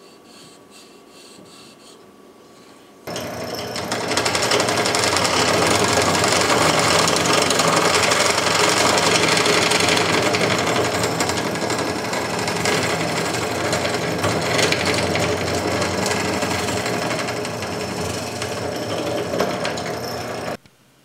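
Benchtop drill press running and boring into a small wooden block, a constant motor hum under a fast, even rattle. It starts suddenly about three seconds in and cuts off abruptly just before the end.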